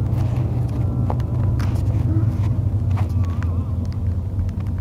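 Car driving on the road, heard from inside the cabin: a steady low rumble of engine and tyre noise.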